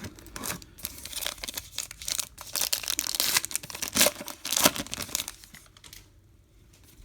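Baseball card pack wrapper being torn open and crinkled in the hands: a run of crackling, rustling tears that fades out near the end.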